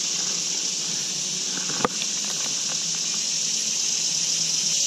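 Steady high-pitched drone of an insect chorus in summer woods, with a single sharp click about two seconds in.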